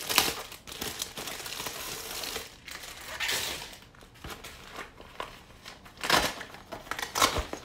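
Thin clear plastic packaging crinkling in several short bursts as a fabric travel toiletry bag is unwrapped and handled.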